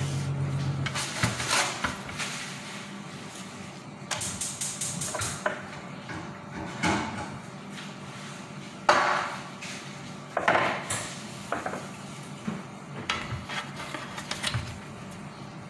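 A spoon and dishes clinking, knocking and scraping as filling is scooped onto a plate of wraps, in scattered short strokes; the sharpest knock comes about nine seconds in.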